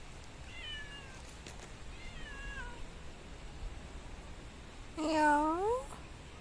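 A domestic cat meows once, loudly, about five seconds in: a call lasting nearly a second that dips and then rises in pitch.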